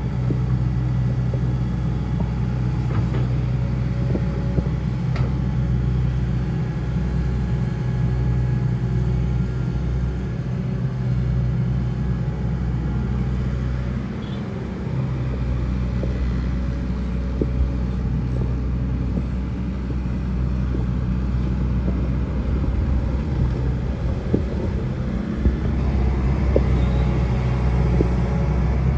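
Hitachi Zaxis excavator's diesel engine running steadily at working speed, a low drone that eases briefly a few times, with a few faint clanks.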